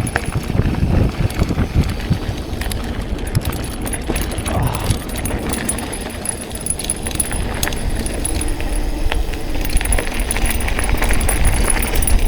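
Mountain bike riding down a rough, rocky trail: a steady low rumble from the tyres on rock and gravel, with many quick clicks, knocks and rattles from the bike and from stones kicked up by the tyres.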